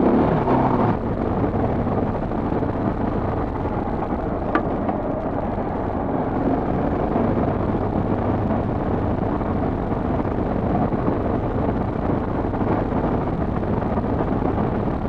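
Motorcycle engine running steadily while riding on a gravel road, mixed with wind noise on the helmet microphone. Louder for about the first second, with a single short tick about four and a half seconds in.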